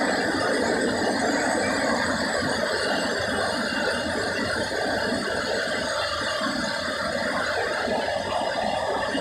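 Steady hubbub of a crowd of bathers at a spring-fed swimming pool, many voices blended together with high shrieks.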